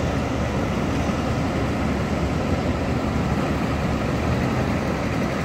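Excavator's diesel engine running at a steady, unchanging speed, heard as a low, even rumble.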